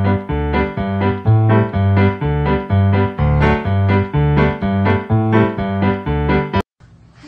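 Background music on piano or keyboard: a bouncy tune with evenly spaced notes over a bass line, cutting off abruptly near the end.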